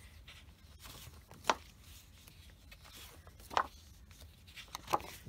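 Sheets of colouring paper being handled and turned over, with a few short, sharp paper snaps.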